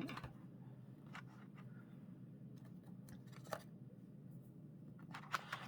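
Faint, intermittent scratching and rustling of art supplies being handled: a few brief scrapes and taps, with a small cluster near the end, over a low steady hum.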